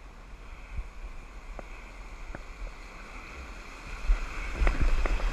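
Kayak running a shallow river rapid: a steady hiss of rushing water with a few light knocks, then about four seconds in the bow plunges into the whitewater, and loud splashing and rumble from spray hitting the camera take over.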